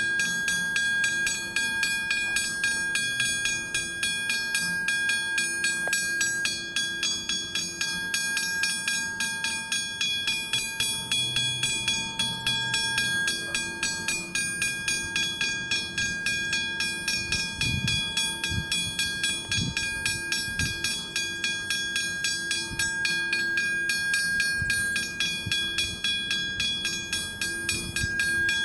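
Westinghouse hybrid level crossing bell ringing with rapid, even strikes, warning that a train is approaching the activated crossing.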